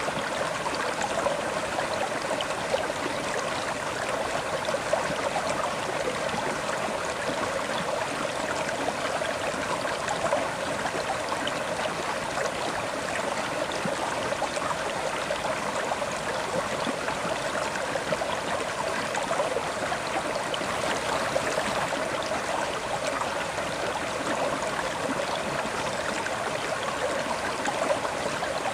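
River water flowing over rocks: a steady rush with small splashes and gurgles throughout.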